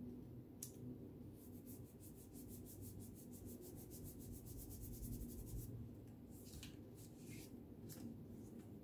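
Faint, fast rubbing of a hand over paper, pressing freshly glued paper cutouts flat: an even run of soft scratchy strokes, about nine a second, for roughly four seconds. Loose paper cutouts rustle near the end.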